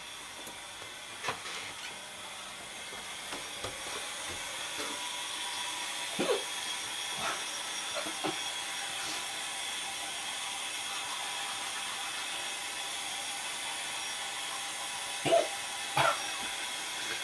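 A man hiccuping again and again, each hic a short, sharp vocal catch, over a steady hiss. The loudest two hics come about a second apart near the end.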